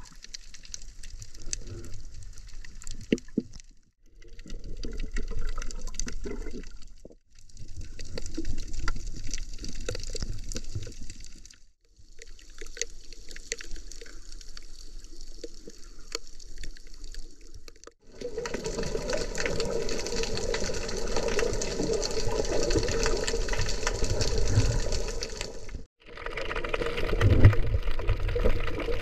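Underwater sound: muffled water movement with fine crackling. It drops out briefly several times and comes back changed each time, and is louder and fuller for the last third.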